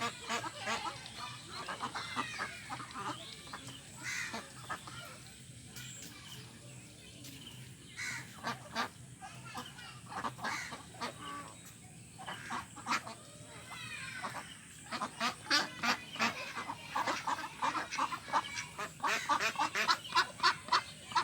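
Several ducks quacking, with scattered calls at first and a fast run of short, rapid quacks over the last few seconds.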